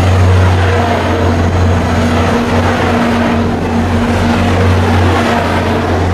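VIA F40PH-2 diesel locomotive running steadily close by, a constant deep engine hum with a haze of blower and exhaust noise over it.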